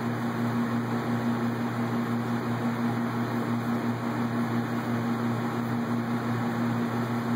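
Steady mechanical hum of a running machine, a low drone with an even hiss above it, unchanging in level.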